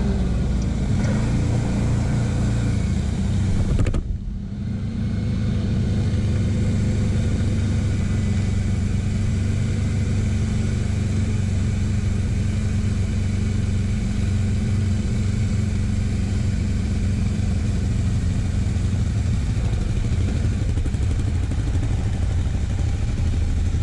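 TGB Blade 1000 quad's engine running steadily as it rides slowly, heard from a mount on the handlebars. The sound dips sharply for a moment about four seconds in.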